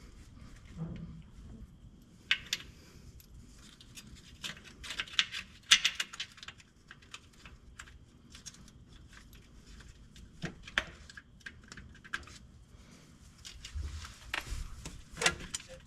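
Metal hand tools and parts clinking and rattling: scattered sharp clicks and short bursts of jangling, busiest about five seconds in and again near the end.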